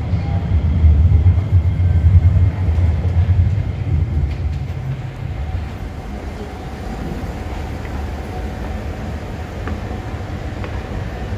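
Low rumble of a metro train moving through the underground station, loudest over the first few seconds and then easing to a steadier, quieter hum.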